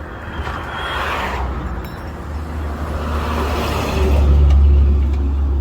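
Motorway traffic rushing past close by, one heavy vehicle's rumble swelling loudest near the end and easing off.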